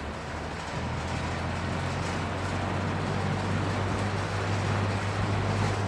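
1960s Hunter FL20 box fan running on high: a steady electric-motor hum under the rush of air from the blades, getting louder about a second in. The fan shakes, which the owner puts down to blades that need redoing.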